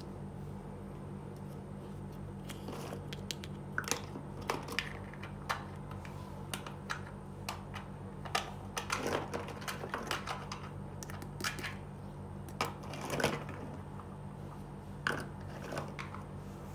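Small hard-plastic toy dishes and utensils being picked up and set down, making light, irregular clicks and taps, some in quick clusters. A steady low hum runs underneath.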